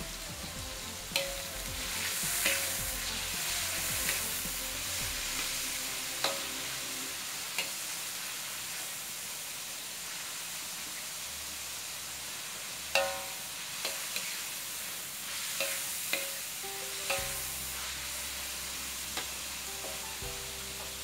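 Beef sizzling as it is stir-fried in a wok, with a metal spatula clinking and scraping against the pan about ten times, now and then.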